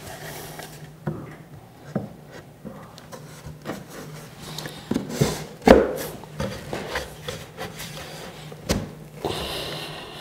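Plywood box parts knocking and rubbing together as a back panel is slid into a glued, box-jointed case: a run of wooden knocks, the loudest about halfway through, and a scraping rub near the end.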